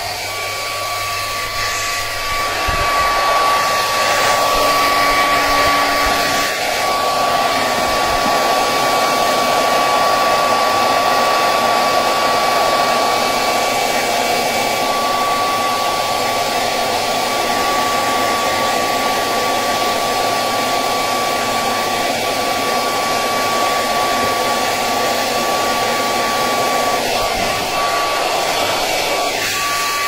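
Handheld hair dryer blowing steadily, with a constant high whine over the rush of air, drying out a combi boiler's water-soaked flow sensor. It gets louder about two seconds in.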